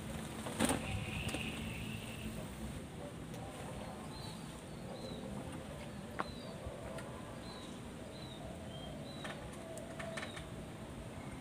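Outdoor background of a steady low rumble with small birds chirping briefly now and then, and a few sharp clicks, the loudest about half a second in.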